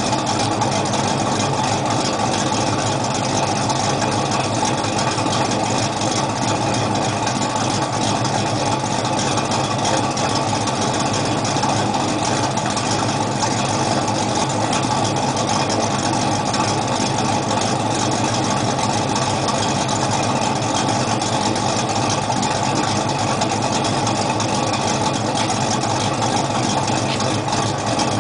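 Chevrolet 327 cubic-inch small-block V8 in a Chevy Nova idling steadily, with no revving.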